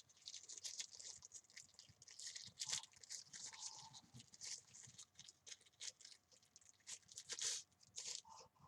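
Plastic packaging crinkling and crackling in irregular bursts as a small microphone accessory is handled.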